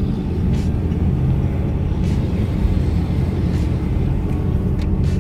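Car driving, heard from inside the cabin: a steady low rumble of engine and road noise, with a faint soft tick about every second and a half.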